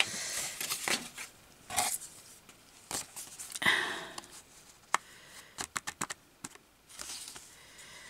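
Paper rustling and crinkling as layered pieces of craft paper are handled and arranged, in short separate rustles, with a cluster of quick light clicks a little past the middle.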